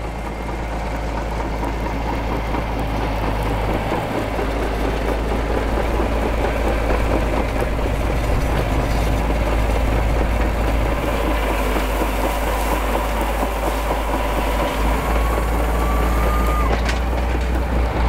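Caterpillar D6D crawler's 10.5-litre 3306 turbo diesel running steadily under load as it pulls a trailed subsoiler through stubble. A faint whine rises slightly in the second half and stops suddenly near the end.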